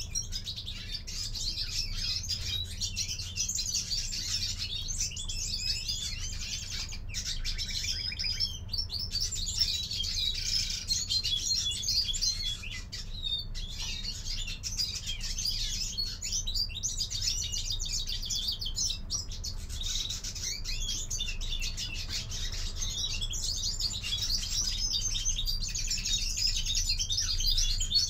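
European greenfinches singing in a cage: a continuous high twittering of rapid trills and chirps, with a few brief pauses, over a low steady hum.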